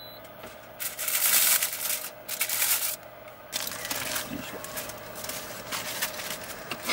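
Packaging rustling in irregular bursts of a second or less, with a few light clicks in between.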